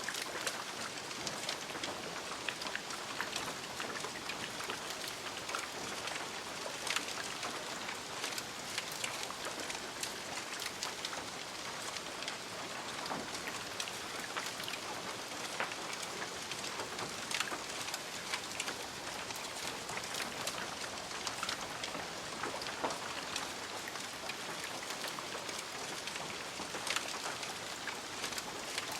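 Smouldering remains of a fire: a steady hiss with dense small crackles and occasional sharper pops.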